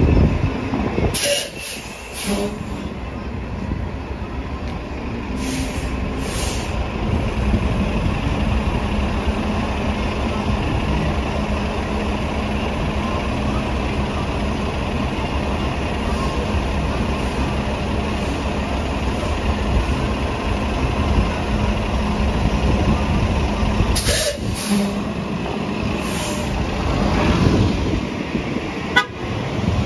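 Diesel engine of a New Flyer XD40 city bus idling at the curb, with short hisses of released air from its brakes and doors about a second in, around six seconds, and again near the end. Late on, the sound of a second bus pulling in alongside swells over it.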